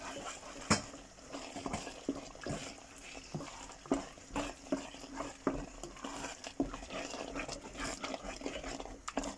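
Wooden spoon stirring thick pumpkin risotto in a metal pot as grated cheese is worked in, making irregular wet squelches and light knocks of the spoon against the pot.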